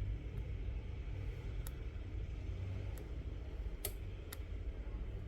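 Steady low background rumble with a few light, sharp clicks, such as small tools and parts being handled on a phone under repair.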